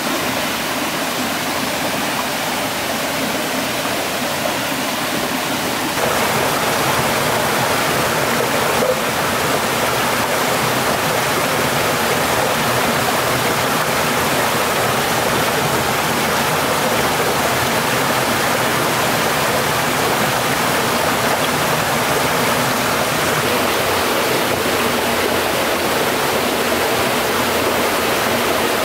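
Stream water rushing steadily, a little louder from about six seconds in.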